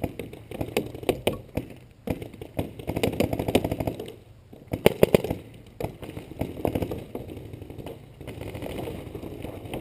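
Paintball markers firing quick strings of shots, in several volleys with short pauses between them.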